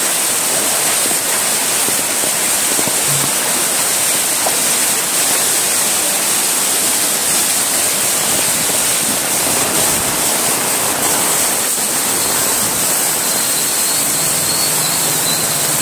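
Heavy monsoon rain and floodwater rushing down a street, a steady loud wash of water.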